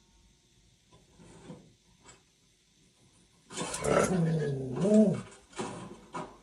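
An animal's loud, drawn-out vocal call starting about three and a half seconds in, wavering in pitch and rising and falling near its end, followed by a few shorter noises.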